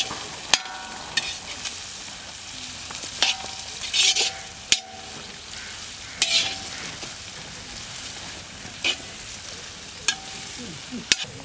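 A long steel spatula scrapes and clinks against a large iron kadai, stirring scrambled egg and vegetables frying in hot oil, over a steady sizzle. The strokes are irregular, every second or two, and a few are sharp metal clinks that ring briefly.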